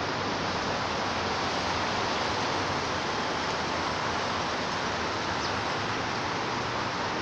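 Steady, even rushing noise with no distinct events, unchanged throughout.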